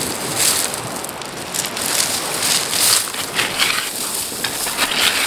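Hands digging into a pebble beach, smooth stones scraping and clattering against each other in irregular bursts.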